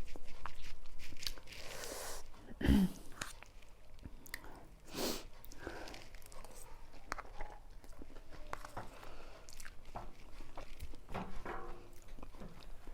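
Close-up eating sounds of a person chewing noodles, with many small wet mouth clicks. A short throaty vocal sound with falling pitch comes about three seconds in.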